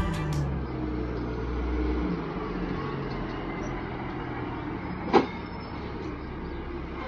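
A garbage truck's diesel engine running at the curb, heavier for the first two seconds and then settling to a lower rumble, with one sharp metallic clank about five seconds in.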